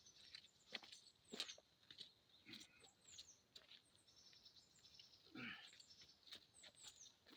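Faint birds chirping: short, high, falling calls scattered throughout, with a few soft knocks.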